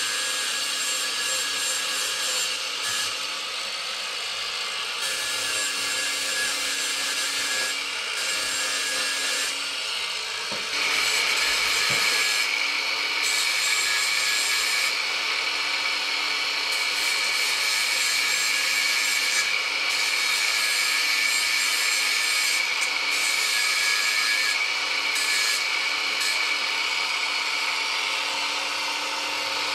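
Small handheld power tool running steadily as it grinds a small part held in the hands. About eleven seconds in, a steady high whine comes in and the sound gets a little louder.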